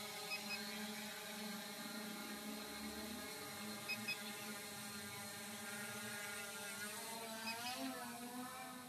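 SJRC F11 quadcopter's brushless motors and propellers whining steadily in a hover, their pitch swinging up and back near the end as the drone climbs.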